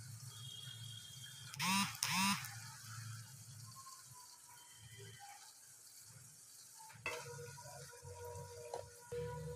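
Karayappam (unniyappam) frying in hot oil in an appam pan, a soft steady sizzle. About two seconds in, two short loud pitched calls cut through, the loudest sounds here.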